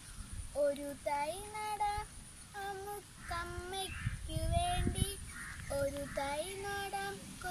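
A young girl singing solo with no accompaniment, holding and gliding between notes. A low rumble rises under the voice about halfway through.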